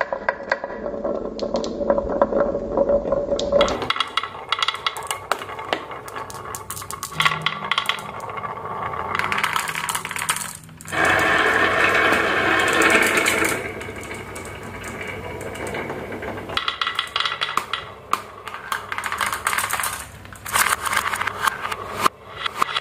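Glass marbles rolling and clattering down grooved wooden marble-run tracks and a carved wavy wooden slope. A continuous rolling rattle is dotted with many sharp clicks as the marbles knock against one another and the wood.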